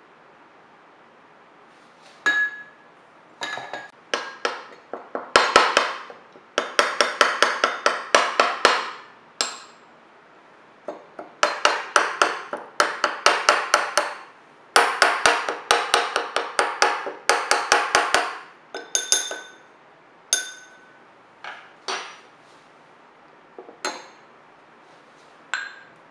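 A spoon stirring gelatin and water in small ceramic bowls, clinking quickly against the bowl sides several times a second. The stirring comes in runs of a few seconds each, with a few single clinks near the end.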